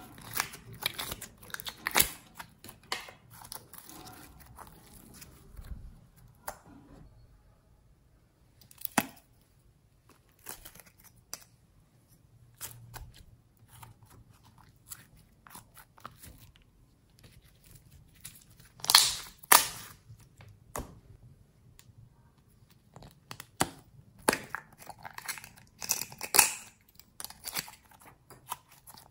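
Glossy slime being squeezed, poked and pulled out of its containers by hand: irregular clicks and pops, sparse in places, with the loudest cluster about two-thirds of the way through.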